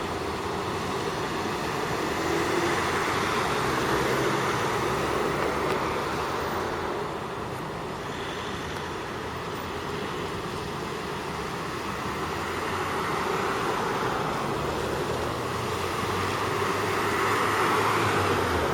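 Road traffic on a busy city street: a steady hum of passing vehicles' engines and tyres that swells as vehicles go by, several times over.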